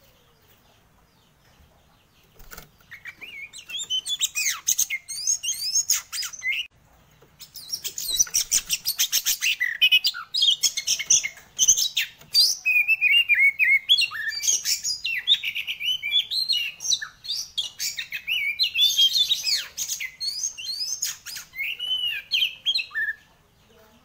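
Oriental magpie-robin (kacer) singing loudly in a long, varied run of quick whistles, trills and chattering notes. It starts about two and a half seconds in, breaks briefly around seven seconds, then sings almost without pause until just before the end.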